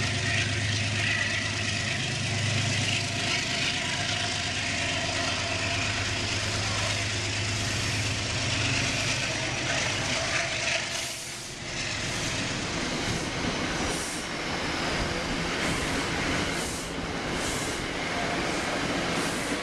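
Metro-North commuter train standing at the platform: a steady low hum for about the first ten seconds, then short hisses of air every second or so through the later part.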